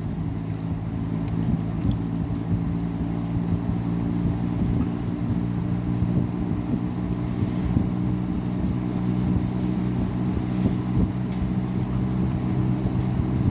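Robeson model 2385 reversible box fan with a Samsung motor and a heavy blade, running forward on high speed: a steady low drone of several pitched tones over the rush of moving air.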